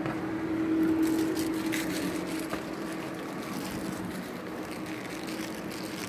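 A steady low mechanical hum, swelling a little about a second in, with rustling and a few faint clicks.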